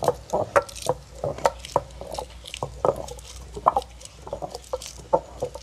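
Traditional stone grinder: a hand-turned stone pestle grinding green chillies in the hollow of a stone mortar. It makes irregular clacks and scrapes of stone on stone, two to four a second.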